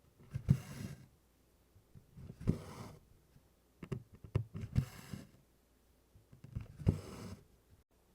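Needle and DMC cotton floss being drawn through 24-count Congress cloth in tent stitch: four strokes about two seconds apart, each a sharp pop as the needle pierces, then a short swishing hiss as the thread pulls through, with light clicks of the needle between.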